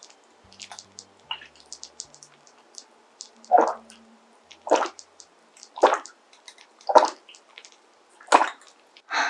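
Close-up wet eating sounds of a person chewing spoonfuls of pork kimchi stew. There are small clicks at first, then short loud wet smacks about once a second from about a third of the way in.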